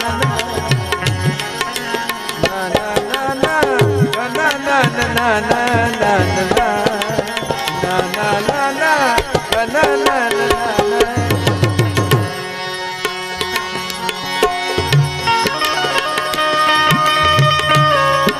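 Indian devotional bhajan music: tabla drumming in a fast, dense rhythm under a melody that slides and ornaments rapidly through the middle of the passage, then settles into steadier held notes after about 12 seconds.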